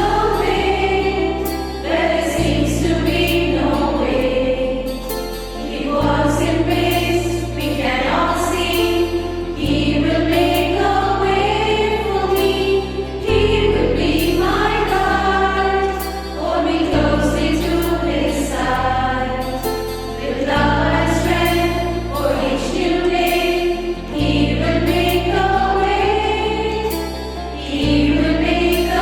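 Choir singing a Christian hymn over an instrumental accompaniment, with held bass notes that change every second or two.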